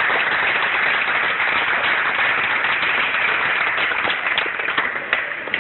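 Audience applauding, thinning to a few scattered claps near the end.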